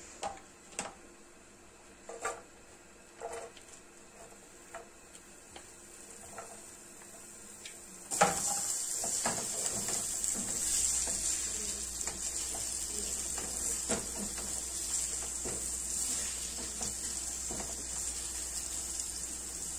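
A few faint clicks, then about eight seconds in chopped onion goes into hot oil in a nonstick pan with a sudden loud hit. A steady sizzle follows while a silicone spatula stirs and scrapes the onion.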